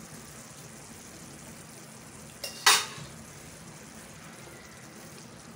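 Tomato and chana dal gravy simmering in a kadai with a steady, faint sizzle as it is stirred with a spatula; one sharp clank of the spatula or lid on the pan about halfway through.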